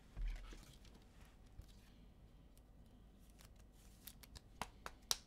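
Handling noise from trading cards and their packaging on a table: a soft low thump just after the start, then a few sharp clicks and snaps in the last second or so.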